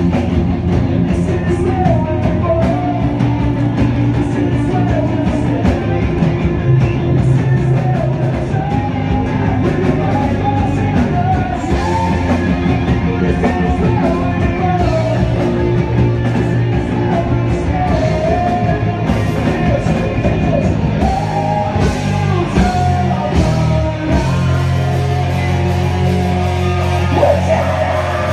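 Live rock band playing loudly: electric bass, electric guitar and drum kit with cymbals, and a man singing the melody into a microphone over them.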